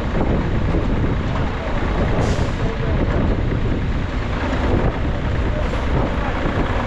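A large engine running steadily, with no change in speed or sharp knocks.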